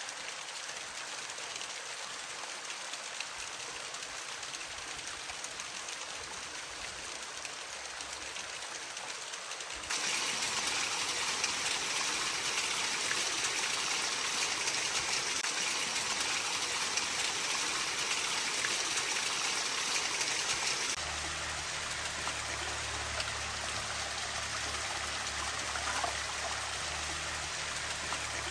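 Stream water flowing and rushing steadily, louder for a stretch in the middle, with abrupt changes between takes. In the last part a low steady hum runs under the water.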